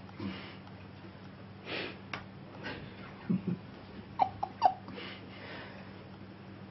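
Cats playing on carpet: two dull thumps about three and a half seconds in, then three quick short chirps. Soft breathy sounds and a few light clicks come between, over a steady low hum.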